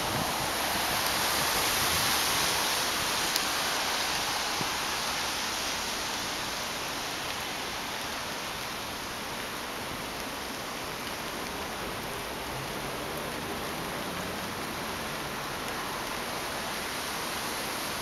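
Steady rain falling, a little heavier in the first few seconds.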